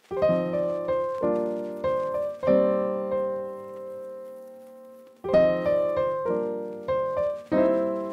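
Background piano music: chords and notes struck and left to ring, a long held chord fading in the middle before the playing picks up again.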